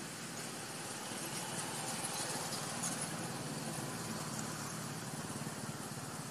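Steady outdoor background noise: an even hiss over a low hum, swelling a little around the middle.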